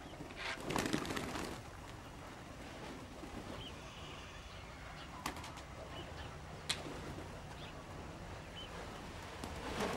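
Domestic pigeons close by: a burst of wing flapping about half a second to a second and a half in, then faint short bird chirps and two sharp clicks.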